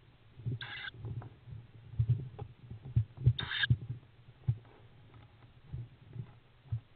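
Tawny owl chicks moving in a wooden nest box: dull knocks and scuffles on the wood floor, with two short, wheezy hissing begging calls, one under a second in and another about three seconds later.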